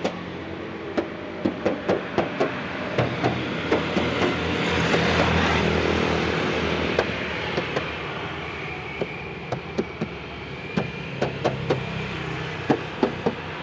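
Fingers tapping and knocking on the steel body panels of a 2004 Honda CR-V, many short sharp taps. This is the check that the panels are still bare metal and not filled. Under the taps a vehicle rumble swells in the middle and fades.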